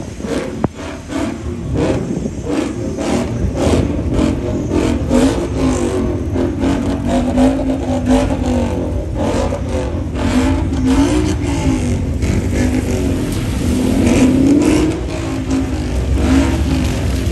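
A car or truck engine revving, its pitch rising and falling again and again, with a run of sharp crackles through the first half or so.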